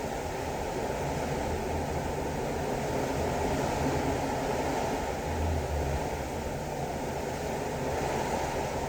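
Ocean waves washing along a cruise ship's side, heard from a cabin balcony: a steady, even rush of water with no separate wave breaks standing out.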